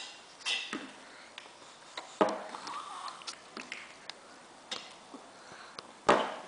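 Short sniffs and breaths, mixed with small eating noises and light clicks as a toddler bites into a strawberry. The loudest rushes come about two seconds in and again near the end.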